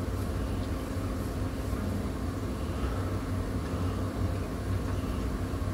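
Steady low hum of background room noise, like a ventilation fan or air conditioner running; no distinct event stands out.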